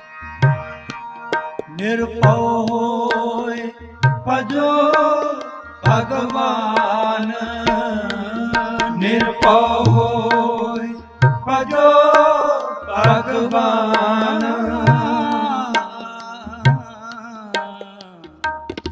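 Tabla and harmonium playing a kirtan melody, with the tabla's deep bass strokes recurring under a flowing, gliding melodic line.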